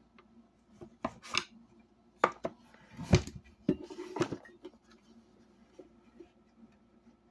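Speaker cabinet being pried and pulled at to snap off its bottom panel: a run of sharp knocks and clatters, loudest about three seconds in, then a few faint taps.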